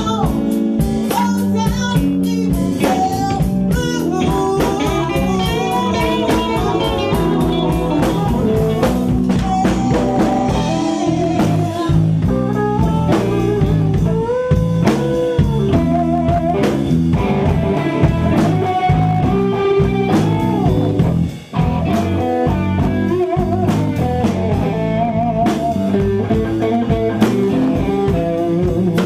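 Blues band playing live: a Stratocaster-style electric guitar plays lead lines with bent, wavering notes over a drum kit.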